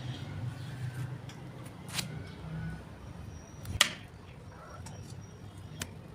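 A few sharp clicks or taps over a low steady hum, the loudest just before the four-second mark.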